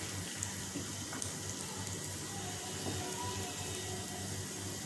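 Oil sizzling steadily in a frying pan under a shredded potato, carrot and egg patty as it fries, a soft even hiss over a low hum.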